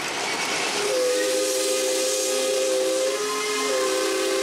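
Steam locomotive whistle blown twice over a hiss of steam, sounding several notes at once. A long blast starts about a second in; after a short break near the end, a second blast begins and runs on.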